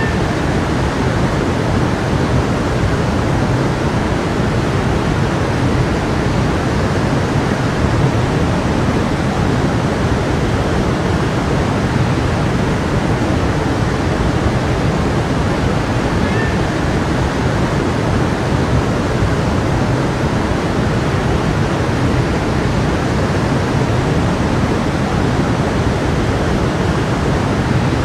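A stream's water rushing steadily, a dense, even noise with no pauses.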